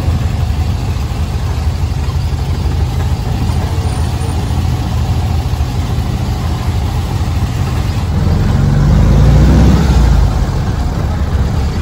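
Dune buggy engine running as the buggy drives along a rough dirt trail, a steady low rumble with road and wind noise. Toward the end the engine briefly gets louder and rises in pitch.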